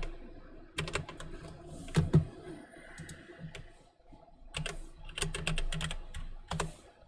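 Computer keyboard keys clicking in several short bursts of typing, with pauses in between.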